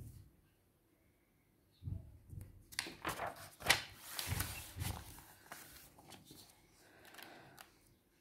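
Paper being handled: irregular rustling and crinkling with a few soft knocks, starting about two seconds in, busiest in the middle and dying away near the end.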